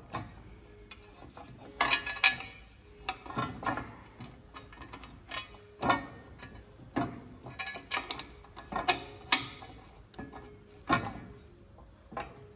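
Steel plate and bolts clinking and knocking against the tractor's frame as bolts are fitted through the plate by hand: irregular metallic clicks and knocks, some ringing briefly.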